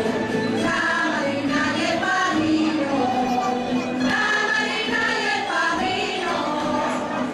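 Live Extremaduran jota: a group of voices singing together to guitar accompaniment.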